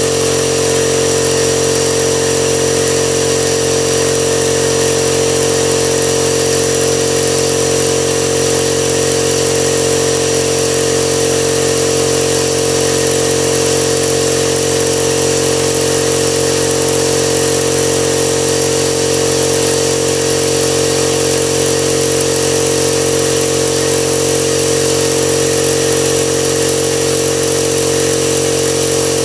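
5-gallon Husky air compressor running steadily and filling its tank, just switched on after a new pressure switch was fitted. It is a loud, constant motor-and-pump hum that does not change and does not cut off.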